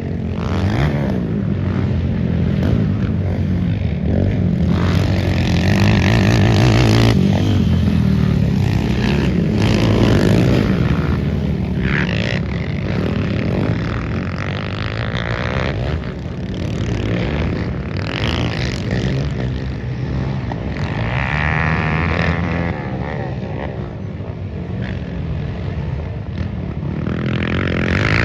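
Racing quad (ATV) engines revving hard as they race past on an off-road track, the pitch rising and falling with throttle and gear changes, louder in the first half.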